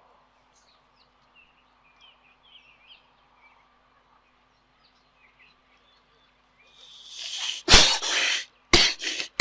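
Baboon sneezing: a breathy build-up rising over about a second, then one loud sharp sneeze, followed by two shorter sharp bursts close together near the end. Faint bird chirps come before it.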